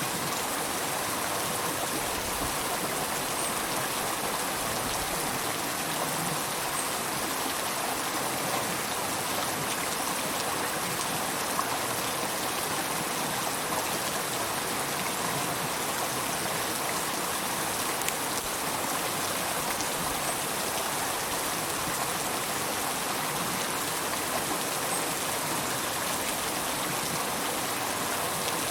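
River water flowing steadily, a continuous even rush of water.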